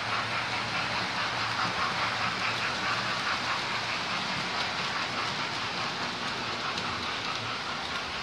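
Model trains running around a layout: a steady whirr of small electric motors and the rapid clicking of wheels over the rail joints, with a faint steady low hum beneath.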